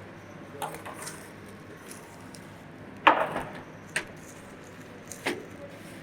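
Scattered sharp knocks and clatters of work being handled, about five in all, the loudest about three seconds in.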